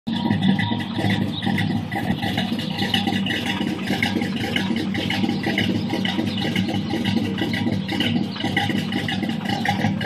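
A 305 HO small-block V8 with a Lunati Voodoo cam, breathing through headers, no catalytic converter and Flowmaster 40 series mufflers, idling at the dual rear exhaust tips while warming up. The idle is steady in level but choppy and pulsing, the lope of the aggressive cam.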